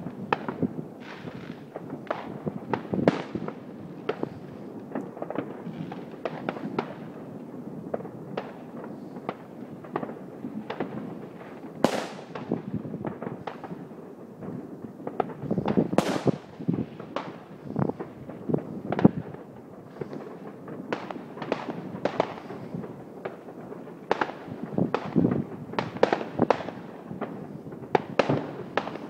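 Fireworks and firecrackers going off at varying distances: a steady stream of irregular bangs and pops overlapping into a continuous crackle, with two sharper, louder bangs near the middle.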